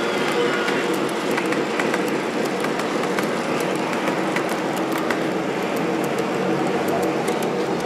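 Model freight train cars rolling past close by on their track: a steady clattering run of wheels with many small clicks over a faint steady hum.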